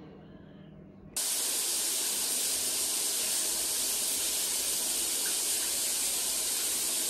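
Water running in a steady hissing rush that starts suddenly about a second in and holds an even level.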